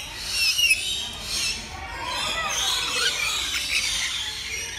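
Lorikeets chattering and screeching: many short, shrill calls, some sliding up or down in pitch, growing into a dense overlapping chatter about halfway through.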